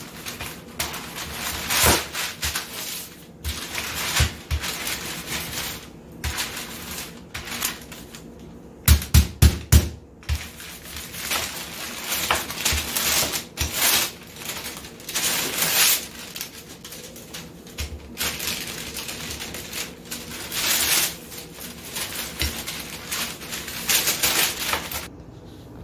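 Parchment paper crinkling and rustling as dough is rolled between two sheets with a wooden rolling pin, in repeated bursts. About five sharp knocks come in quick succession near the middle.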